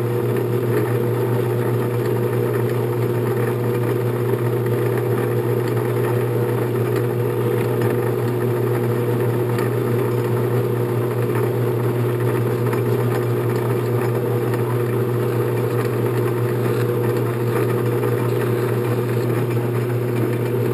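Late-1950s 10-inch Sheldon metal lathe running steadily under power: an even hum from its motor and gear train during a threading job.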